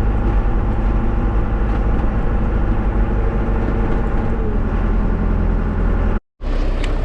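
Diesel tractor engine running steadily, working to pull a disc set through a deep snow drift. Near the end the sound cuts out completely for a split second, then resumes.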